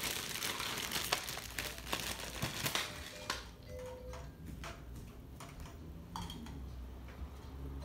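Plastic toy tea set pieces being handled: light clicks and clatters of hard plastic, with a dense rustling for the first three seconds, then scattered clicks and a couple of brief electronic tones.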